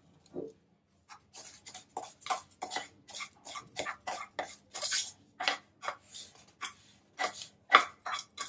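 Wooden spatula scraping roasted rice semolina out of a metal pan onto a steel plate, in short repeated strokes about two a second, starting about a second in.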